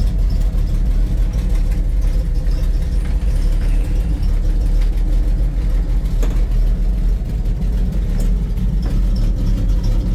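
Chevrolet T50 cabover truck's engine idling steadily, heard from inside the cab.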